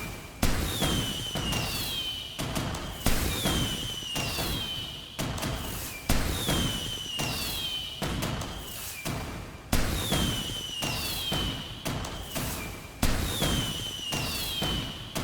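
Fireworks going off. A sharp bang about every three seconds, each followed by a high whistle that falls in pitch, over continuous crackling pops.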